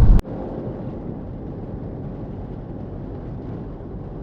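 A car driving on a highway: a steady rumble of engine and tyre noise, which drops suddenly to a quieter level just after the start, with a click.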